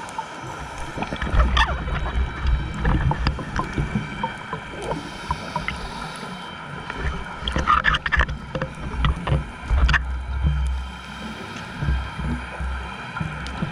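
Underwater scuba dive sound: a diver's regulator exhaust bubbles, a low burbling rumble full of small crackles that comes in stretches of a few seconds, one with each breath out.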